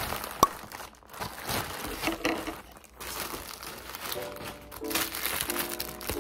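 Plastic packaging crinkling and rustling as a poly mailer bag and a plastic-bagged pack of stick-on hooks are handled, with one sharp click about half a second in. Light music with held notes comes in about four seconds in.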